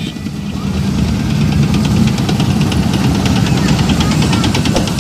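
A motor running steadily: a low hum with a fast, even ticking over it.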